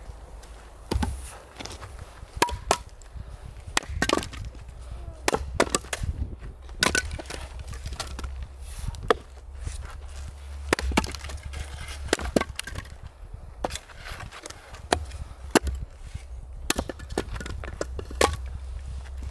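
Fiskars splitting axe chopping firewood on a stump block: repeated sharp strikes, spaced irregularly, as rounds split apart, with split pieces knocking against the block and the pile.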